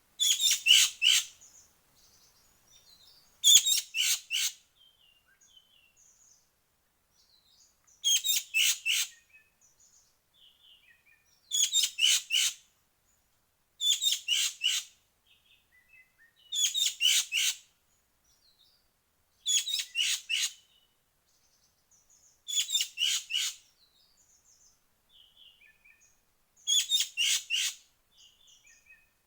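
Bird calls of the kind used to lure ekek keling (green magpie): nine bursts of rapid, harsh, chattering notes, each about a second long, coming every three seconds or so, with faint small chirps between them.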